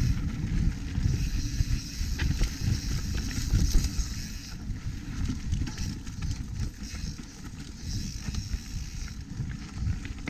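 Lapierre Zesty mountain bike rolling along a dirt trail: steady tyre noise with a few short knocks and rattles from the bike, under a low wind rumble on the camera microphone.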